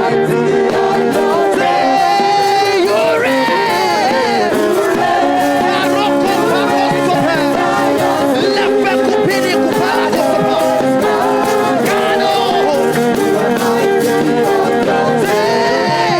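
Live gospel band music with choir voices singing, a continuous sustained worship passage.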